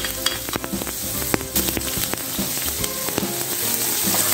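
Chopped onion frying in hot oil in a wok, sizzling with dense crackles. Near the end a wooden spoon stirs it.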